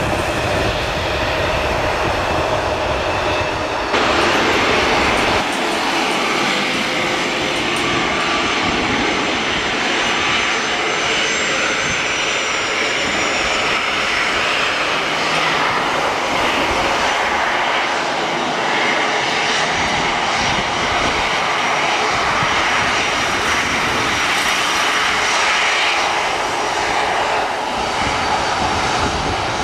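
Twin jet engines of a Boeing 737 freighter running steadily as it taxis onto the runway: a continuous roar with a faint high whine over it. About four seconds in, a louder stretch breaks off suddenly a second and a half later.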